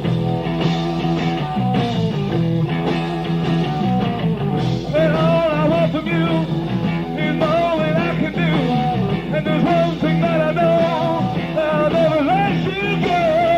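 Live rock band playing an instrumental passage: steady guitar, bass and drums, with a bending lead guitar line coming in about five seconds in.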